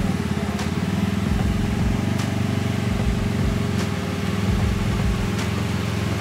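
Side-by-side UTV engine running at low revs as the machine crawls down a rutted dirt trail, a steady hum with an uneven low rumble.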